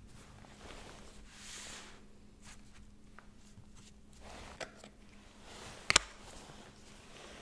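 Gloved hands handling a clay model hamburger, lifting off the top bun: soft rustling of the plastic gloves and small taps and clicks against a plastic cutting mat. There is one sharp click about six seconds in, over a faint steady hum.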